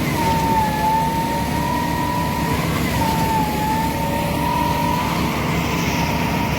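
Concrete pump truck running during a pour: a steady low diesel engine rumble under a constant high whine that wavers slightly in pitch.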